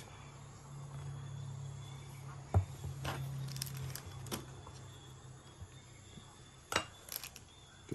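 Handling noise from a compact camera with a clip-on wide-angle lens adapter being turned in the hands: a few sharp clicks and taps, over a low steady hum that fades about halfway through.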